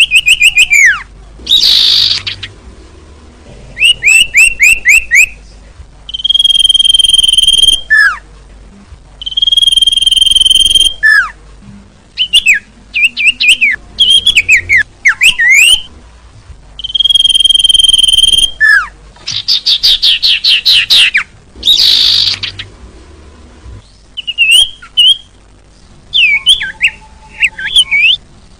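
Bird-lure (pikat) recording of small songbirds calling. Bursts of rapid sharp chirps and falling notes alternate with steady high whistled notes held for about a second, repeating every few seconds.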